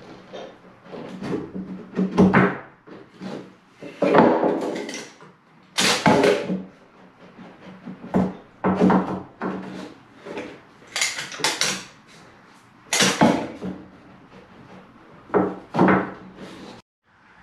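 Turned wooden stair spindles knocked and pushed into the grooved handrail and base rail while being dry-fitted: a series of irregular wooden knocks and scraping thuds.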